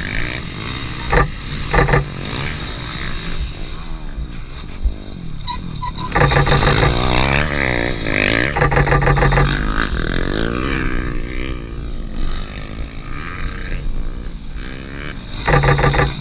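Dirt-bike engines of race motorcycles revving up and down as they ride the track, the pitch rising and falling with each throttle change. The nearest bike is loudest for a few seconds past the middle and again near the end, with a couple of short sharp clicks about a second in.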